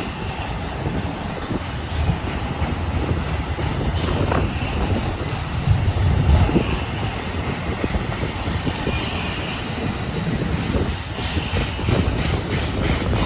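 Freight train rolling slowly past, with strong wind gusting on the microphone.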